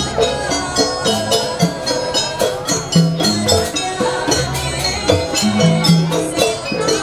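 Live Javanese jaranan music: a reedy, stepping pipe melody over drums, gong tones and rapid jingling percussion strokes.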